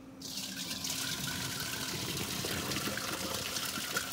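Hot cooking water pouring out of a pot of boiled potatoes through a perforated strainer lid into a sink, starting just after the beginning and running steadily.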